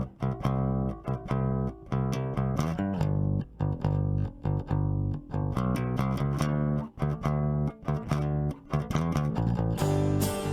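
Background music: a track of plucked guitar over bass guitar, note after note at a steady pace.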